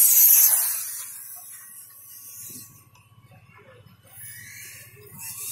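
Radio-control 1/5-scale motorcycle passing close with a high hissing whine, loudest at the start and fading away over about three seconds. The hiss comes back faintly as a bike comes round again near the end.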